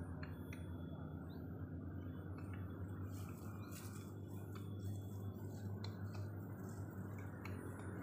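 Outdoor ambience: a steady low rumble with faint, scattered ticks and clicks over it.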